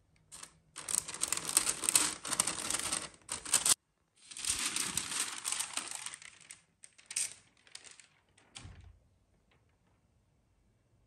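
Stiff paper wrapping crinkling and rustling as it is handled and lifted off clothing in a cardboard box. There are two long stretches of dense crinkling, split by a brief silence about four seconds in, then a few scattered crinkles.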